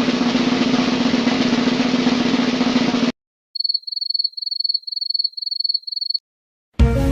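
Snare drum roll sound effect that cuts off abruptly about three seconds in. After a short gap comes a cricket chirping sound effect: a high, pulsing trill in six or seven short bursts. Music starts right at the end.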